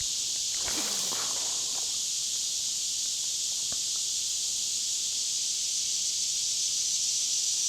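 Steady high-pitched hiss of a summer insect chorus, with two faint clicks about four seconds in.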